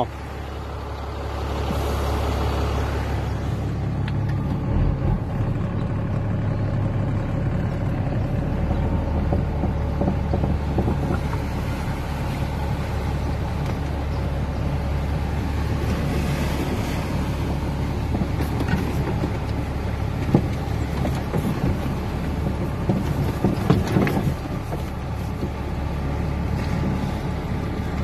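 Vehicle engine running with a steady low drone, heard from inside the cab as it drives slowly through floodwater on a road, with the wash of water against the vehicle and a few short knocks in the last third.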